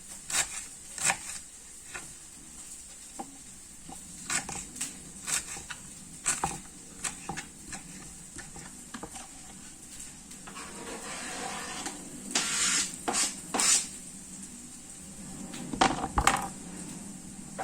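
Kitchen utensils and dishes knocking and clinking in irregular sharp taps, with a brief hiss about two-thirds of the way through.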